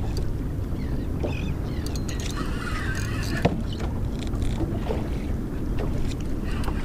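Steady low rumble of wind buffeting the microphone and water moving against a small boat's hull, with a few sharp clicks, the clearest about three and a half seconds in.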